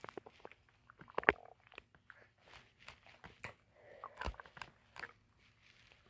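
Human stomach growling from hunger: a run of irregular gurgles, squelches and clicks, with short rumbling tones about a second in and again about four seconds in.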